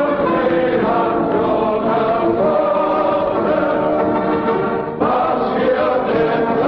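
Choral music, voices holding long sustained chords, moving to a new chord about five seconds in.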